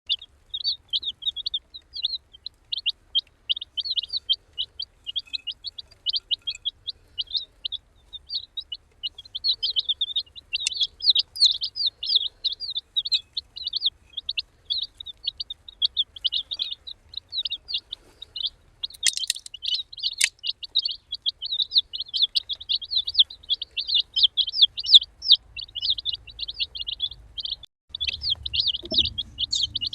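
A group of baby chicks peeping without pause, many short, high, slightly falling calls overlapping in a steady stream. There are a couple of brief knocks about two-thirds of the way through.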